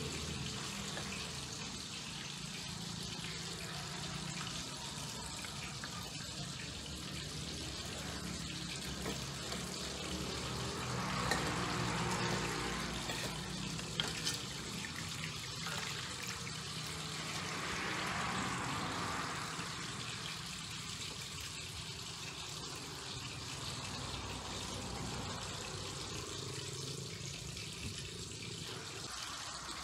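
Water sloshing in a steel basin as leafy greens are swished and washed by hand, with knife clicks on a wooden cutting board. A steady low hum runs underneath.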